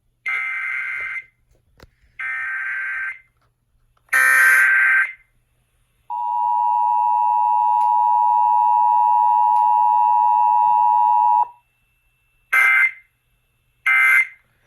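Emergency Alert System tones: three one-second bursts of the warbling SAME digital header, then the steady two-tone EAS attention signal for about five seconds, which stops abruptly, followed by two short data bursts near the end.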